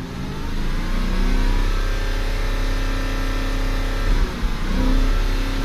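Porsche Cayenne S 955's 4.5-litre V8 engine revved up and held at raised revs, dropping back about four seconds in and then rising again. The engine has an intermittent misfire that the mechanic puts down to cylinder 7's ignition coil starting to fail.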